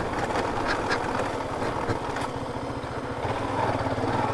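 Yamaha FZ motorcycle engine running steadily at low revs, with a few short clicks over it.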